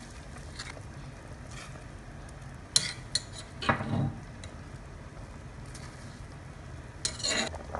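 A metal spoon knocking and scraping against a stainless steel pot while curry paste is stirred into boiling broth, with a steady low rumble from the boiling pot underneath. A few sharp clicks come about three seconds in, a heavier knock just after, and a short scrape near the end.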